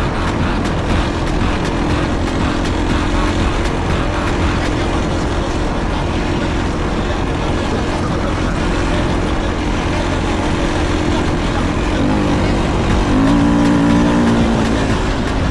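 450cc four-stroke dirt bike engine running while being ridden on an enduro trail, over a steady rumbling noise. The engine note holds fairly even, then the revs shift and climb a little louder from about twelve seconds in.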